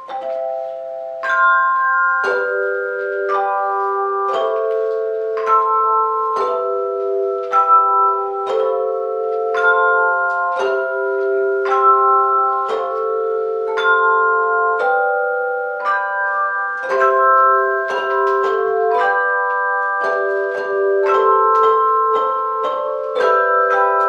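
A handbell choir ringing a hymn arrangement: chords of several bells struck together about once a second, each bell left to ring on under the next.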